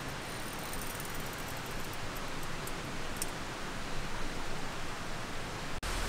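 Steady, even rushing noise with faint high ticks during the first half; it stops abruptly just before the end.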